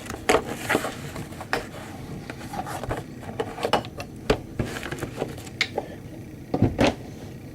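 Irregular light knocks and clicks of small hand tools and a pistol slide being handled, with the loudest pair of knocks about six and a half seconds in.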